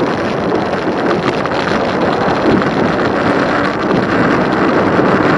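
Wind rushing over the microphone while riding an e-bike, a loud, steady gusty noise.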